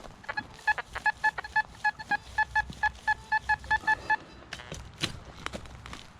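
Nokta Makro metal detector giving a rapid string of short, same-pitched beeps, about four or five a second, as it sweeps over metal targets in ground full of junk. The beeping stops about four seconds in, leaving scattered clicks and rustling.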